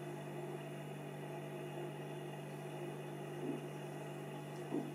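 Steady low background hum, with faint knocks and rustles from a cassette deck mechanism being handled: a small one about three and a half seconds in and another near the end.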